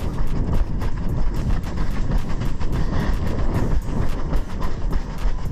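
Quick, even running footfalls, about three a second, picked up by a head-mounted action camera over a steady low rumble of wind and camera jostle.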